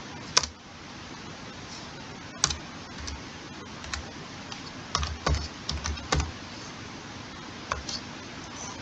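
Computer keyboard keystrokes as a name is deleted and retyped. A few single key presses come first, then a quick run of several around the middle and a couple more near the end, over a steady background hiss.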